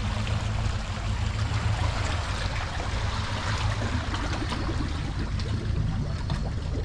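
Water washing and trickling around a boat being launched, over the steady low hum of an idling engine.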